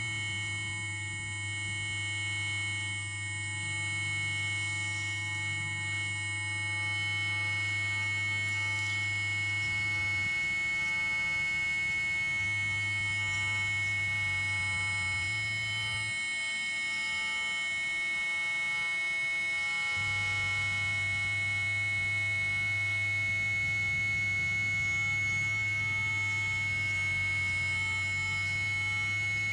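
Improvised drone from battery-powered electronic instruments: many held steady tones layered together, with a prominent high tone. A low bass tone cuts out about ten seconds in and comes back, then drops out again from about sixteen to twenty seconds in before returning.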